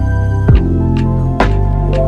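Background music: sustained synthesizer tones, some sliding up in pitch, over deep bass, with a drum hit just under once a second.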